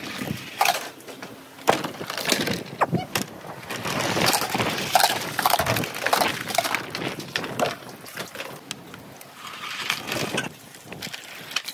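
Small billiard balls rolling down a plastic rain-gutter marble run, with many quick, irregular clacks and rattles as they knock against the gutter and each other.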